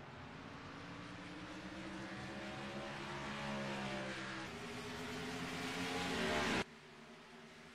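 Race car engine accelerating hard, its revs climbing steadily, dropping once with an upshift about four and a half seconds in, then climbing again. The sound falls away abruptly near the end.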